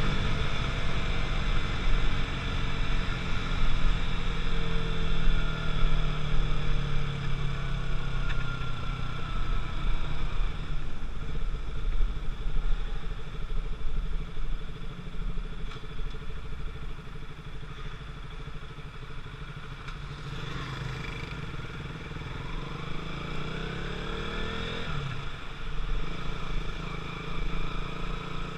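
KTM RC 200's single-cylinder four-stroke engine running through its stock exhaust, held at higher revs for roughly the first ten seconds, then dropping lower, with a quick rev rising in pitch a few seconds before the end.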